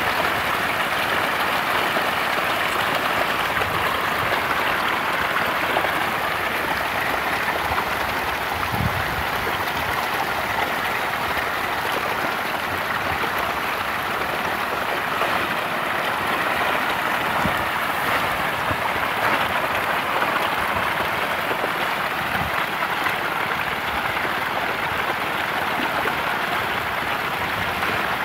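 A dense mass of farmed catfish thrashing and splashing at the pond surface in a feeding frenzy, a steady, unbroken churning of water.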